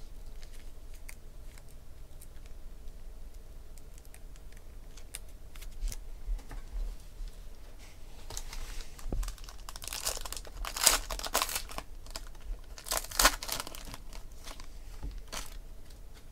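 Foil trading-card pack wrapper crinkling and tearing as it is opened by hand, with scattered light clicks of cards being handled. The loudest crinkling comes in several short bursts in the second half.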